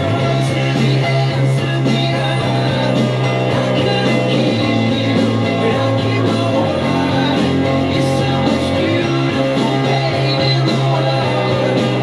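A rock song playing, with singing and guitar over a steady bass line.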